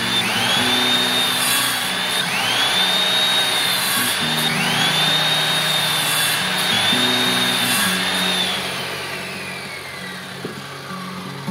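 A high-pitched power tool whine in repeated runs of about two seconds, each starting with a quick rise in pitch, over background music. Near the end the tool winds down, its pitch and noise falling away.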